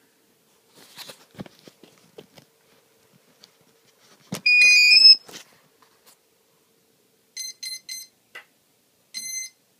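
Battery connectors handled and clicked together, then the hexacopter's electronics power up: a short stepped electronic startup tune, followed by three quick beeps and one more beep near the end.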